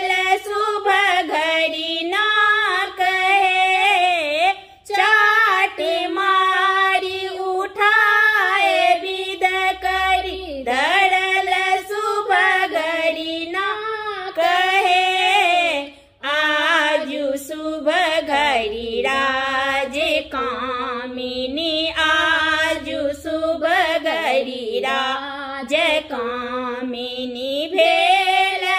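Two women singing a Maithili wedding folk song together without accompaniment, in a steady melodic line with short breath breaks about five and sixteen seconds in.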